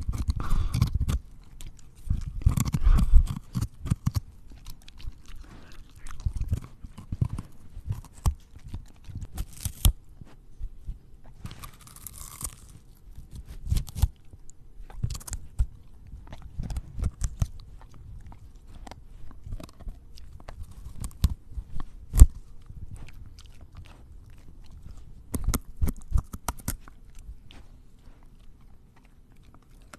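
A borzoi crunching and chewing raw vegetables (carrot, celery, then broccoli), close-miked at its mouth: irregular crisp bites and crunches in clusters, with one sharp snap a little past the middle.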